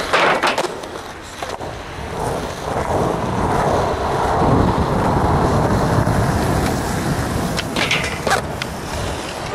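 Skateboard wheels rolling over rough asphalt, with sharp clacks and scraping of the board on a low rail near the start and again about eight seconds in.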